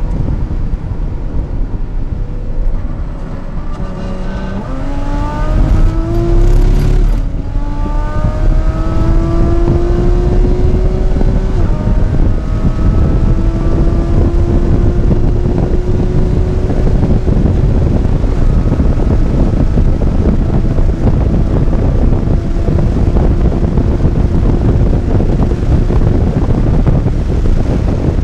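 Porsche 981 Cayman's flat-six engine under hard acceleration, heard from inside the cabin: its pitch climbs steadily and drops at two upshifts about seven and twelve seconds in. Heavy wind and road noise run underneath.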